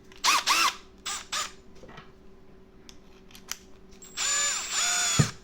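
Milwaukee M12 Fuel installation drill/driver with an attachment head fitted, its motor run in short trigger pulls. There are two quick spin-ups, each rising and falling in pitch, in the first second and a half, then a longer run of about a second near the end that changes speed partway through.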